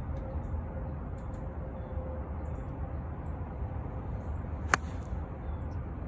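An 8-iron striking a golf ball once, a single sharp click about three-quarters of the way in, over a steady low background rumble and faint high chirps.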